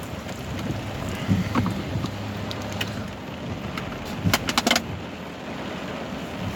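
Car engine running steadily, heard from inside the cabin, with a quick cluster of sharp clicks a little past four seconds in.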